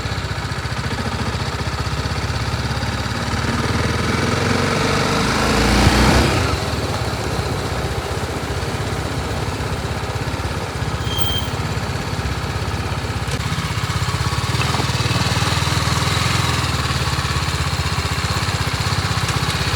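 BMW G 310 RR's single-cylinder engine running steadily, swelling and rising in pitch to a peak about six seconds in, then settling back to a steady note.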